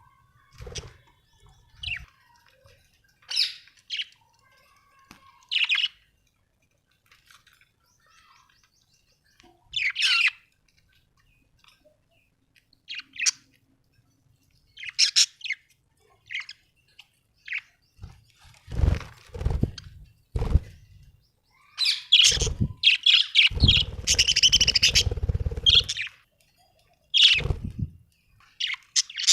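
Budgerigars chirping in short, scattered calls. In the last third it grows busier and louder, with low thuds and a dense burst of noise lasting a couple of seconds.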